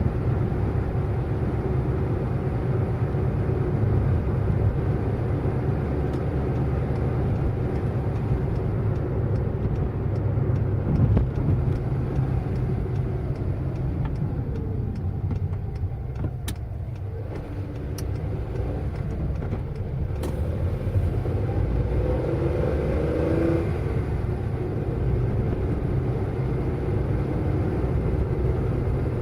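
Car driving at speed, a steady low engine and road rumble. A few sharp clicks come around the middle, and a short gliding whine follows a few seconds later.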